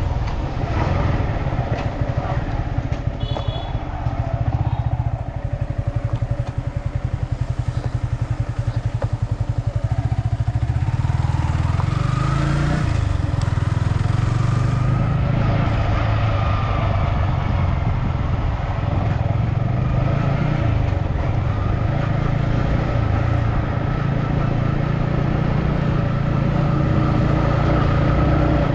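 Motorbike engine running under way, its pitch dipping and then rising again around the middle as it slows and picks up speed.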